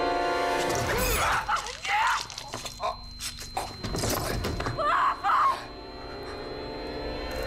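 Fight-scene sound mix: a rapid run of sharp crashes and heavy impacts with shouting and screaming, after a sustained music score that drops away about a second in. Near the end the impacts stop and a quieter steady musical drone comes back.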